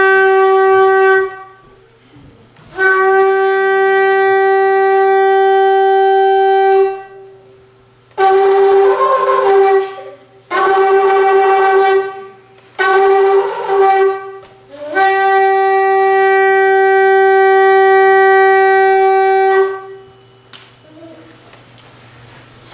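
A shofar (ram's horn) sounded in a series of blasts, each holding one pitch: a long blast, a second long one, three shorter and rougher blasts, then a final long blast of about five seconds.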